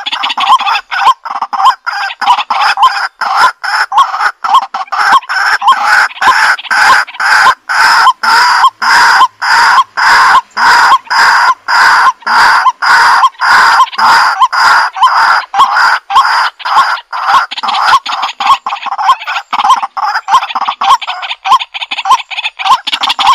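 A large flock of domestic fowl calling loudly without a break, short calls overlapping in quick succession.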